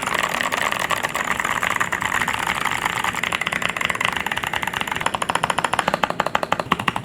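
Typing test on an Angry Miao Relic 80 mechanical keyboard with ice-blue 极地弧 switches and translucent keycaps: a dense, fast clatter of keystrokes, turning about five seconds in into a quick, even run of separate key strikes.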